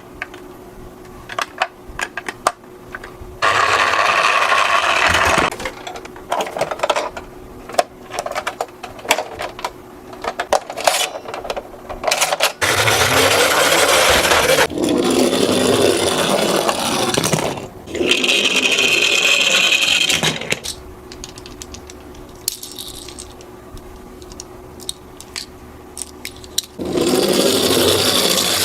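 Toy mini cars rolling and clattering down a hard slope: many sharp clicks and rattles, broken by several louder rolling stretches each lasting a second or a few seconds.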